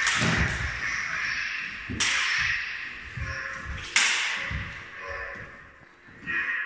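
LED lightsabers clashing in sparring. There are three sharp clash sounds about two seconds apart, each trailing off over a second or so, with softer low swooshes of the swinging blades between them and a weaker hit near the end.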